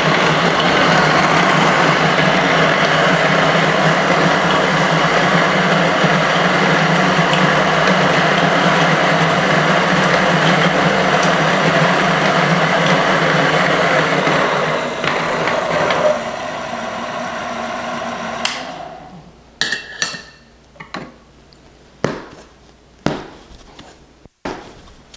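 Electric espresso grinder grinding coffee beans, a steady loud run of about sixteen seconds. Its sound goes thinner for a couple of seconds before it stops. Then come a handful of sharp knocks and taps.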